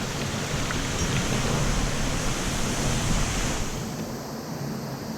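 Waterfall rushing, a steady roar of falling water. The hiss is brighter for the first three and a half seconds or so, then eases.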